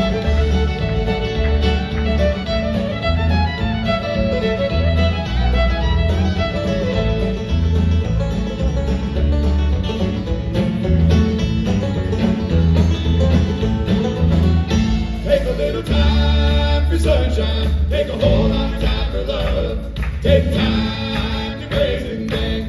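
A live bluegrass band plays an instrumental break led by a bowed fiddle. Banjo, acoustic guitar, electric bass and drums keep a steady rhythm under it.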